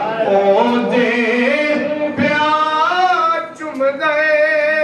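A man singing a Punjabi naat unaccompanied into a microphone, drawing out long wavering notes without clear words. There is a short break about three and a half seconds in, then one long held note.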